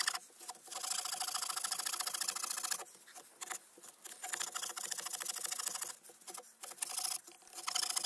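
Victorinox pocketknife saw blade cutting across a hard larch board: fast rasping back-and-forth strokes in runs of a second or two, broken by several short pauses.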